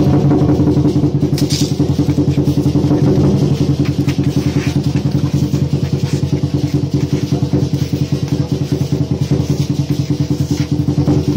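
Lion-dance drum beaten in a fast, even roll of about six strokes a second, with a steady low ring under the beats.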